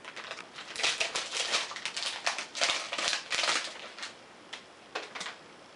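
Thin clear plastic wrapping crinkling and rustling as it is pulled off a new tablet: a quick irregular run of crinkles for about three seconds, then a few single rustles near the end.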